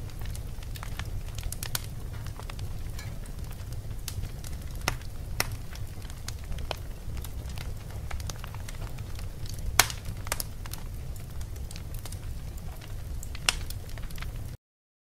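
Wood fire burning, crackling and popping over a low steady rumble, with a few louder sharp pops. It cuts off suddenly near the end.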